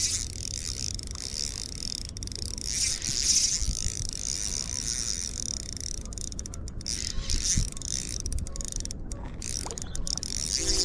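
Fishing reel being cranked to bring in a hooked trout, a steady whirring, ratchety gear noise, with wind rumbling on the microphone.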